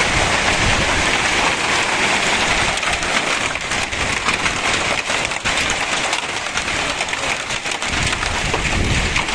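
Heavy rain mixed with hail falling: a dense, steady hiss with many small, sharp hits of hailstones landing on the ground and roofs.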